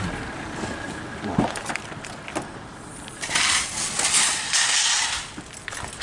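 Rustling of fabric gear bags and clothing with a few light knocks as kit is handled and packed. Two longer spells of rustling come in the middle.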